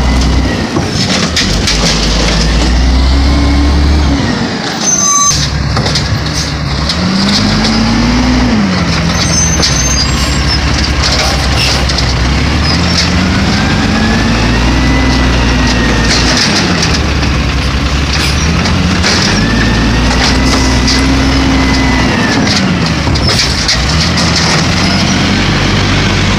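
Automated side-loader garbage truck's diesel engine idling and revving up and back down about four times as the hydraulic arm lifts and dumps carts.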